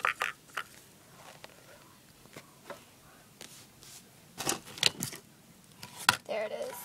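Handling noise: scattered clicks and knocks of objects being picked up and set down in a small room, a few right at the start and a cluster about four and a half to five seconds in, with one sharp knock about six seconds in.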